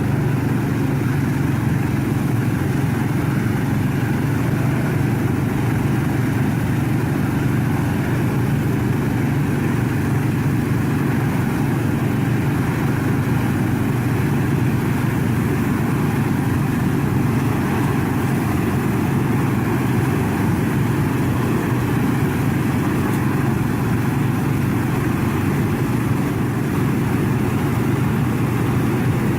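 A heavy engine running steadily at constant speed, a low hum with no change in pitch or loudness.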